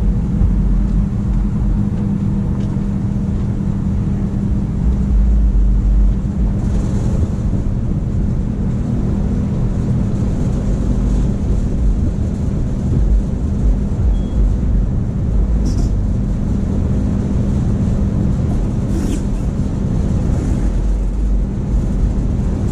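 Steady low mechanical hum over a constant rumble, unchanging throughout, with a few faint brief ticks.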